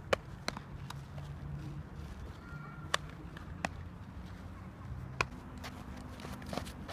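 Baseballs being thrown and caught in gloves: about six sharp smacks of ball into glove, the loudest near the start, about three seconds in and about five seconds in, over a faint low hum.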